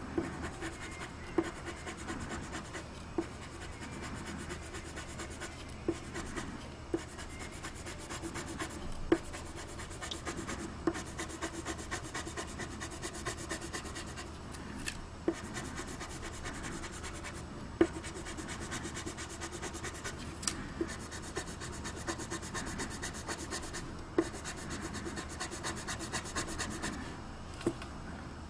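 Colored pencil scratching steadily across paper in quick back-and-forth shading strokes, with frequent short sharp ticks.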